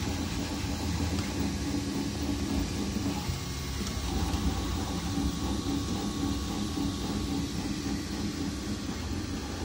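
Large-format MINGDA 3D printer running a print. Its stepper motors whine in tones that shift as the print head moves, over the steady whir of its cooling fans.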